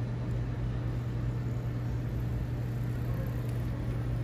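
City street ambience: a steady low hum under an even wash of background noise.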